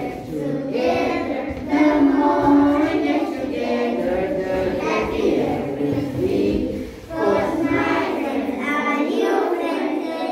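A group of young children singing a song together, with a brief break about seven seconds in.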